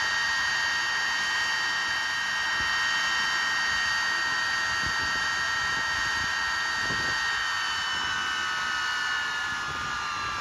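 TS-11 Iskra's single turbojet engine running on a ground engine test: a steady high whine over a hiss. About eight seconds in, the whine starts to drop slowly in pitch.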